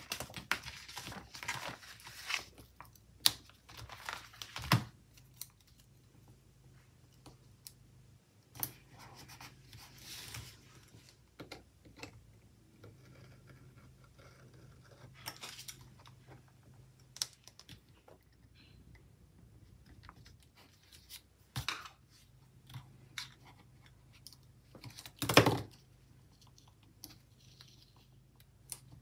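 Paper stickers and sticker-book pages being handled: scattered rustles, small taps and the light tearing of stickers peeled off their backing sheet, with a sharper handling noise near the end.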